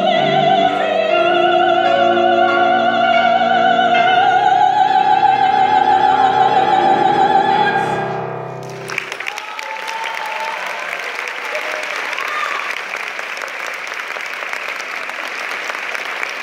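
An operatic soprano holds the final high note of the song with wide vibrato over sustained grand piano chords. She cuts off about eight seconds in, and the audience breaks into steady applause.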